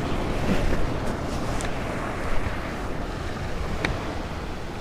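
Sea surf washing against shoreline rocks, a steady rushing, with wind buffeting the microphone and a few faint clicks.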